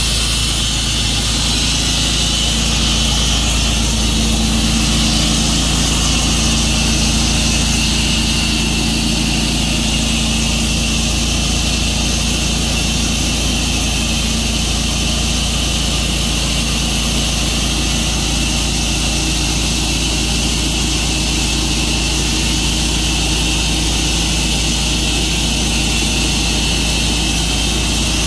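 Tru-Cut sawmill running steadily while milling a maple log: an engine drone with the even hiss of the saw blade cutting through the wood.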